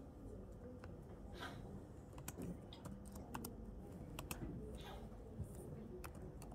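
Faint, irregular light clicks and taps, several a second at times, over a faint steady hum.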